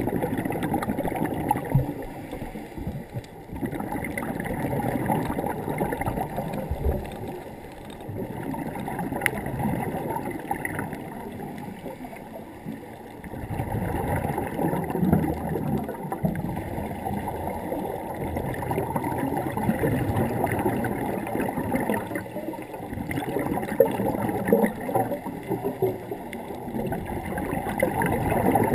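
Scuba divers' exhaled air bubbling from their regulators underwater, heard muffled through a GoPro's waterproof housing. It swells and fades in slow waves every few seconds with the breathing.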